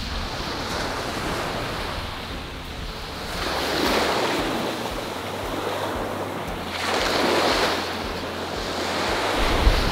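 Small ocean waves breaking on a sandy beach: the surf hiss swells up twice, about four seconds in and again near eight seconds, and falls back between. A low wind rumble on the microphone runs underneath.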